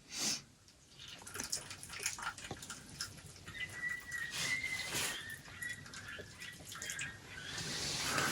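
Faint, high-pitched whining cry of a coyote pup distress call, played as a lure, held for a few seconds through the middle, with small scattered ticks around it.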